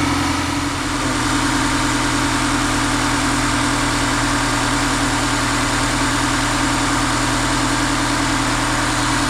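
2024 Subaru Forester's 2.5-litre flat-four engine idling steadily, warming up on its first run after fresh oil and a new filter.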